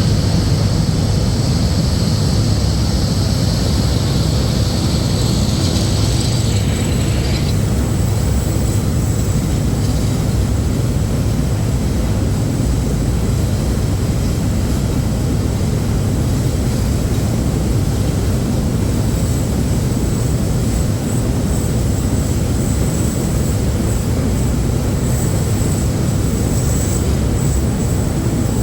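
Diesel locomotive D9E-231 hauling a freight train, its engine running with a steady low drone and the train rumbling along. A high, steady noise over it cuts off about seven seconds in.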